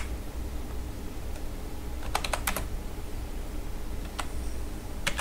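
Computer keyboard being typed on: a quick run of four or five keystrokes about two seconds in and two more near the end, over a steady low hum.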